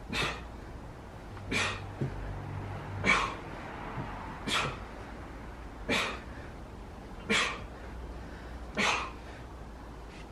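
A man exhales sharply through his mouth once about every second and a half, forceful breathing with each repetition of weighted dips.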